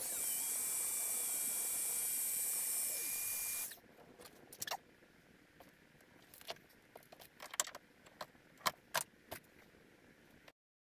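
Heat gun blowing with a steady hiss and a thin whine, melting low-temperature solder-seal connectors onto the stereo wiring, switched off after about three and a half seconds. After that come scattered light clicks and rattles as the wires and connectors are handled.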